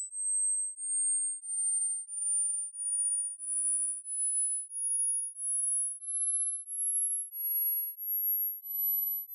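Electronic hearing-test tones: a series of short, pure, very high-pitched beeps, each a little higher than the last, about one and a half per second. They climb steadily toward the top of the hearing range, where ageing ears stop hearing them.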